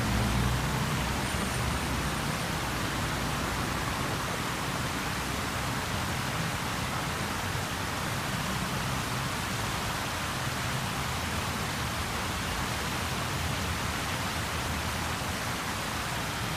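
Steady rushing hiss of a large fountain's water jets splashing, with the low rumble of road traffic underneath.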